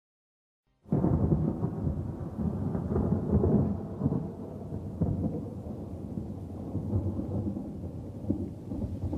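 Rumbling thunder with rain, the recorded opening of a song laid over the picture; it starts suddenly about a second in and keeps rolling.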